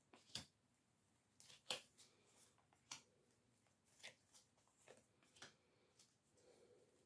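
Oracle cards being handled: faint rustles and about half a dozen sharp snaps of cards being shuffled and laid down.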